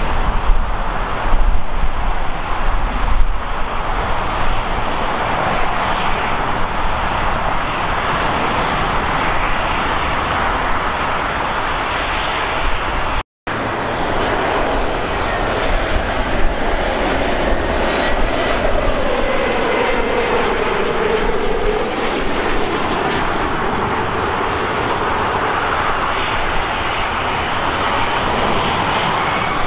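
Airliner engines making a steady rushing noise, with a tone that slides down in pitch in the second half. The sound cuts out for an instant about halfway through.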